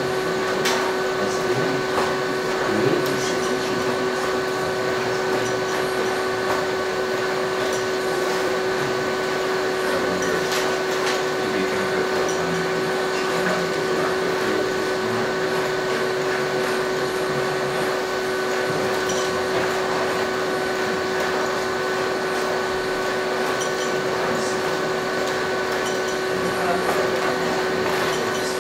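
Steady electric whine of a humanoid robot's joint motors and drives, several fixed pitches held throughout, with scattered soft clicks and knocks as the robot steps and balances.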